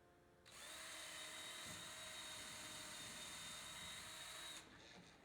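Power drill pre-drilling a hole into a gazebo screen cap. It spins up about half a second in, runs at a steady high whine for about four seconds, then stops.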